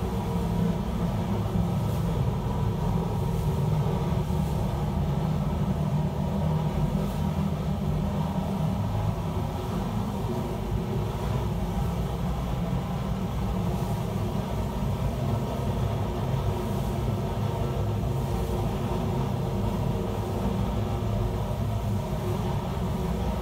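Steady low mechanical rumble with a constant hum above it, unchanging, like machinery or ventilation running.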